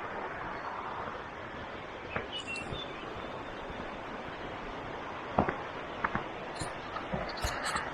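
Steady rush of a river, with a few short bird chirps and a few light footstep scuffs on a dirt path.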